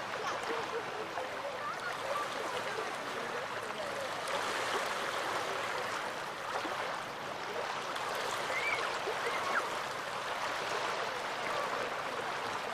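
Small waves of the Gulf of Finland washing and lapping on the shore: a steady wash of water that swells and eases gently.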